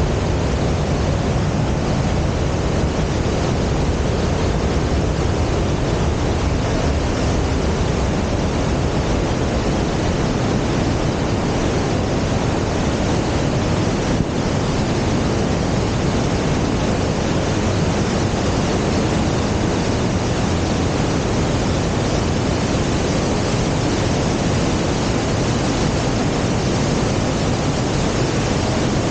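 Whitewater of the Starzlach mountain creek rushing over boulders and small falls in a narrow rock gorge: a steady, loud rushing noise that does not change.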